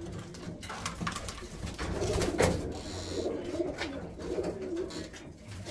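Domestic pigeons cooing, low and wavering, with a few light clicks.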